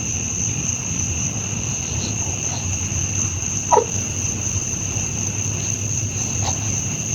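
Crickets chirring in a steady, unbroken drone over a low background rumble, with one short call about halfway through that falls in pitch.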